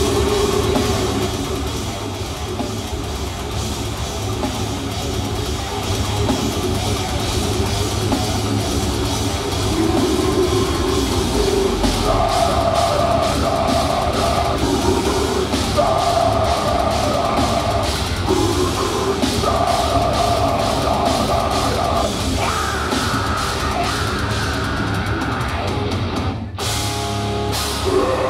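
Loud heavy metal music in a concert hall: fast drumming under distorted chords held in blocks of about two seconds. The sound drops out briefly near the end.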